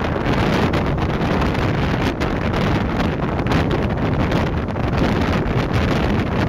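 Wind buffeting the camera microphone aboard a moving ferry: a steady, loud rushing noise, heaviest in the low end, with irregular gusty flutter.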